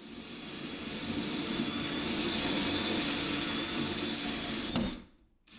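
Power drill spinning a hole saw and cutting a hole through a wooden cabinet, a steady whine for about five seconds that stops abruptly near the end.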